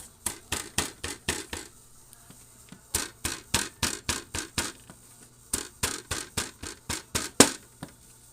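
Malunggay (moringa) leaves, wrapped and wetted, being pounded in a cup: quick knocks about four a second, in three runs with short pauses between, the loudest strike near the end. The pounding is done to soften the leaves before squeezing out their juice.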